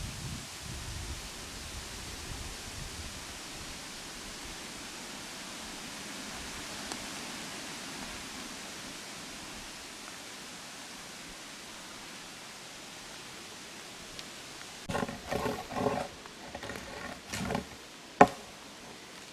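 Steady hiss of rain. About fifteen seconds in come a few short pitched calls or grunts, then one sharp knock near the end.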